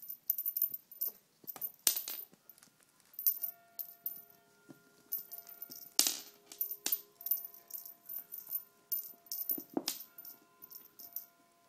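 Close-up rustling, scratching and rattling from a British shorthair kitten playing with a string toy. The noises come in quick irregular bursts, loudest about two, six and ten seconds in.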